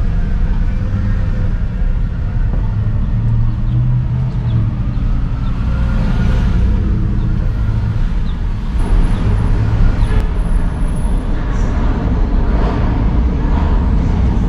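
Road traffic noise: a steady low rumble of motor vehicles.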